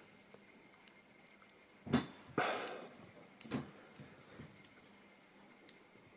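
Handling of Wago lever connectors: a few small clicks and short rustles as the levers are lifted and the connectors worked by hand.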